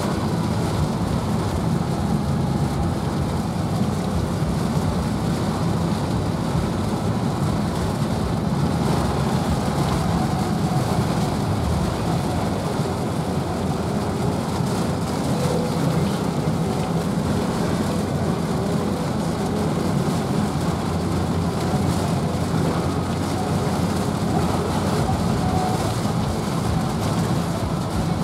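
A car driving in heavy rain: a steady low road and engine rumble with the hiss of rain over it.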